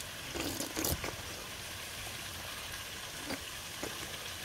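A person sucking and slurping at a soft-boiled egg with a runny yolk, a short slurp about half a second in and a few faint clicks. Behind it runs a steady rush of stream water.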